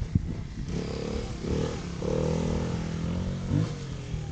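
Kawasaki KX250 dirt bike engine revving under load on a hill climb, its pitch rising and falling with the throttle. A sharp knock near the start.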